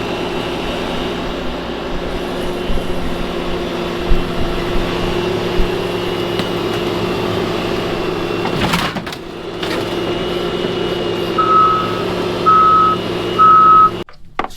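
A heavy vehicle's engine running steadily. Near the end its reversing alarm beeps three times, about a second apart, as it backs up.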